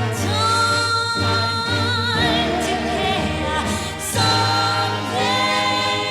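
Music: a slow ballad sung by a female vocal group over an orchestra, with long held notes with vibrato.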